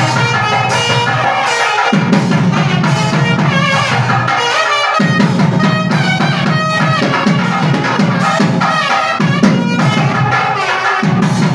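Music with drums beating steadily and a wind instrument playing a wavering, ornamented melody over them; the low drumming drops out briefly about five seconds in and again near the end.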